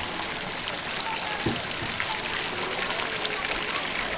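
Steady outdoor hiss with faint, distant voices and a light knock about a second and a half in.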